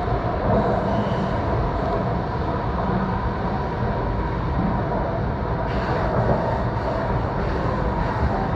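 Running noise of an E4 series Toki shinkansen heard from inside the carriage just after departure: a steady low rumble with a faint hum over it.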